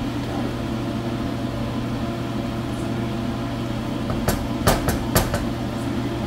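Wooden spatula stirring khichdi in a metal pan over a steady hum, then a quick run of about five sharp knocks past the middle as the spatula strikes the pan.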